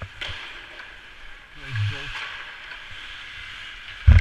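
Ice-rink ambience: a steady hiss of skates on the ice with a distant voice about two seconds in. Near the end, loud low thumping rumbles as the worn camera is knocked and rubbed at the boards.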